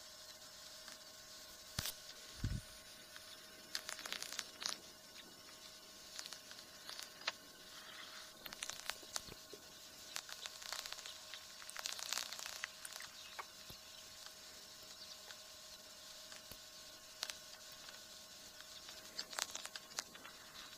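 Faint scattered clicks and short crackling patches over a steady low hum.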